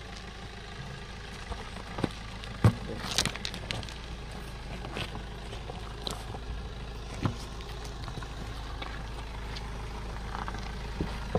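Maruti Suzuki Swift DDiS diesel car creeping over loose river stones: a steady low engine hum with scattered clicks and knocks of stones crunching under the tyres, the sharpest about two and a half seconds in.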